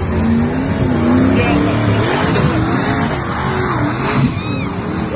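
Rock buggy engine revving hard in uneven, rising and falling surges as its tyres spin on a loose dirt climb, with a brief knock a little after four seconds in as the buggy tips over onto its side.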